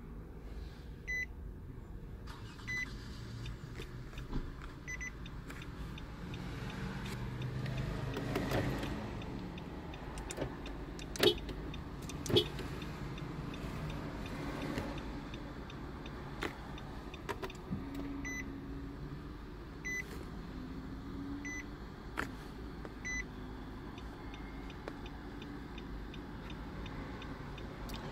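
2016 Nissan Rogue's hazard-light indicator ticking: a short, high electronic tick about every second and a half over a low, steady cabin hum. Two sharp knocks come a little before halfway through.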